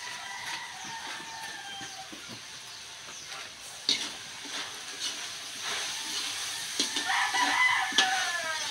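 A rooster crowing, one long falling call near the start and another near the end. In between, a metal spatula scrapes and clatters against a wok as carrots are stir-fried over a wood fire, with a light sizzle.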